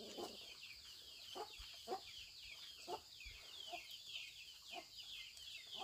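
Chickens clucking and peeping: a dense run of quick, high, falling chirps with a few short lower clucks about once a second, over a steady high hiss.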